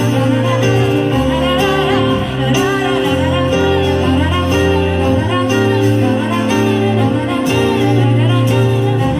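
A live pop band playing, with a woman's voice singing the melody over sustained bass notes and a regular beat of cymbals or tambourine.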